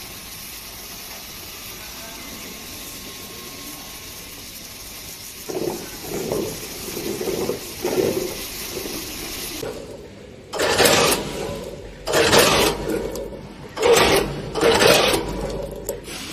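Automatic popping boba packing machinery running: a steady hiss at first, then a soft rhythmic thudding from about five seconds in, then loud rushing bursts roughly every second and a half from about ten seconds in.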